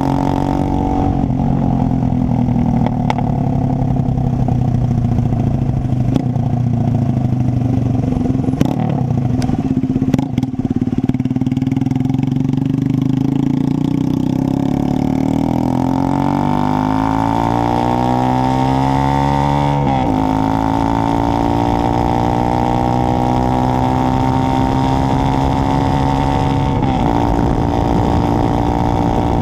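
Horizon 190 motorcycle running on an open Roncar exhaust with no muffler. The engine note holds steady, then climbs in pitch from about halfway as it accelerates, drops sharply about two-thirds in, and holds steady again.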